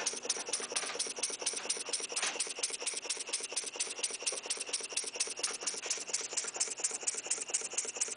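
GEARS double-acting horizontal oscillating model steam engine running steadily, its exhaust puffing in an even, rapid beat of about eight puffs a second.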